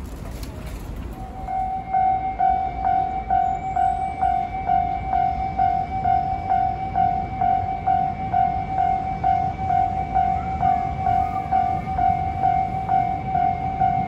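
Japanese railway level-crossing warning bell ringing, a repeating 'kan-kan' tone at about two strikes a second. It starts about a second in as the crossing barriers come down.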